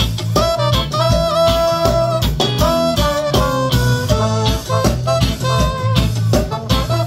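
Live reggae band playing an instrumental passage: electric guitar, bass guitar and drum kit, with a held lead melody line over a steady beat.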